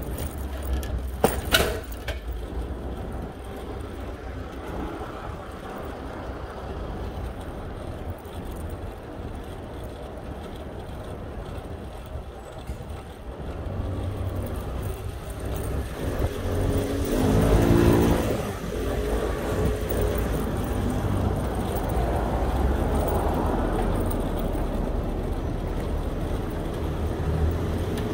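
Road traffic heard from a bicycle on a city street, over a steady low rumble. There is a sharp click about a second and a half in. A motor vehicle passes close a little past halfway, its engine note rising and falling as it goes by, and the traffic stays louder after that.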